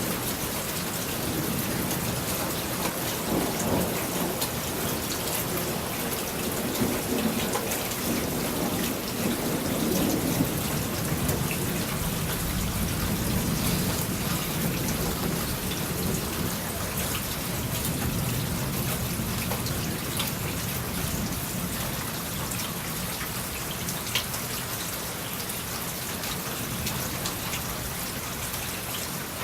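Steady rain of a thunderstorm, with thunder rumbling and rolling for several seconds in the first half. A single sharp tick comes about 24 seconds in.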